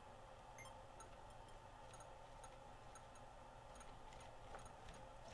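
Near silence: room tone with a faint hum and faint light ticks about twice a second.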